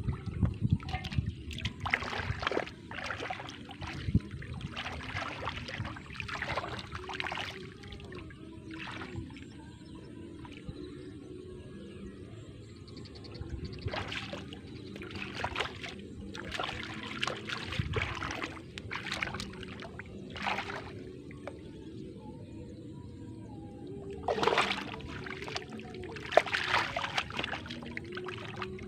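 Splashing and sloshing in shallow muddy floodwater as hands and feet churn the water grabbing for fish, in irregular bursts with quieter stretches between.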